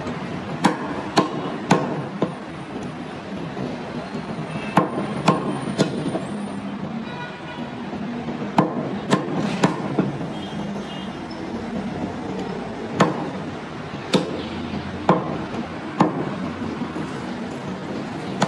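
A heavy meat cleaver chops through goat meat into a round wooden chopping block, making sharp thwacks. There are about a dozen strikes, often in quick runs of three about half a second apart, over a steady background noise.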